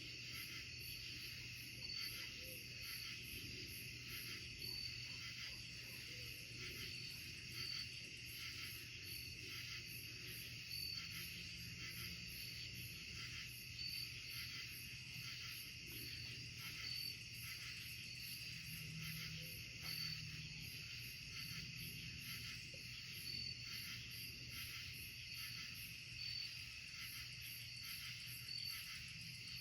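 Night insect chorus of crickets and katydids: a steady high-pitched trilling drone, with a regular short chirp about once a second. A low steady hum runs underneath.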